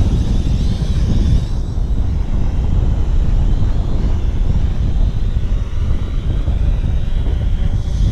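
Heavy wind buffeting on the microphone gives a loud, steady low rumble. Under it is the faint high whine of a small quadcopter drone's propellers, which fades out about a second and a half in and comes back near the end.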